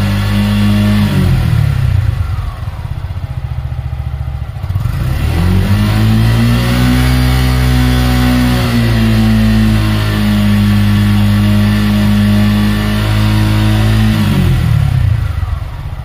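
Suzuki Gixxer 150's single-cylinder engine revved through its exhaust. It is held at high revs, drops to idle, is revved up again and held for about eight seconds, then falls back to idle near the end.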